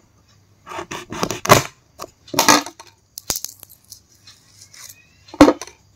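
Short crackling, crunching bursts in a few clusters, with a sharp one near the end: a knife scoring vegetable pieces and their peel being pulled off.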